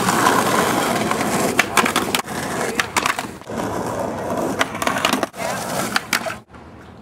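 Skateboard wheels rolling on rough concrete, broken by several sharp clacks as tricks are popped and the board hits and lands. The rolling cuts off abruptly near the end.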